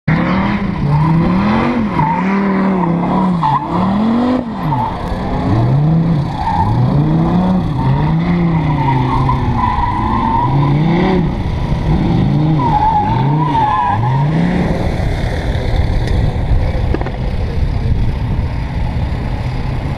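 A drift car's engine revving up and down over and over as the car slides, with tyre squeal. The revving stops about three-quarters of the way through, leaving a steady rumble.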